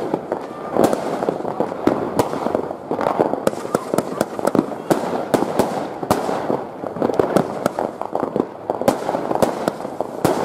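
Consumer firework batteries firing: a fast, irregular string of sharp shots and bursting bangs, several a second.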